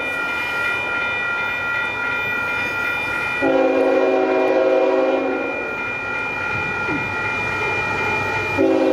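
An approaching diesel freight locomotive sounds its air horn: a chord of several notes held for about two seconds, starting about three and a half seconds in, then another blast starting near the end. A steady high-pitched tone runs underneath.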